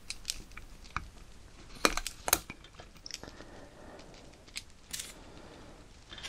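Light metallic clicks and ticks of a wire snap ring being worked into place over the piston dust seals of a Jaguar XJC brake caliper, with a pair of sharper clicks about two seconds in.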